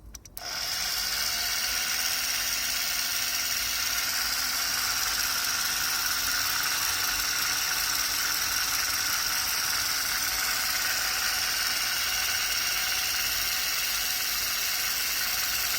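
Small battery-powered electric motor and gear train of a vintage tin toy tank running steadily, a high whirring whine that starts about half a second in. The gearbox has been rebuilt with knurled shafts so its gears no longer slip.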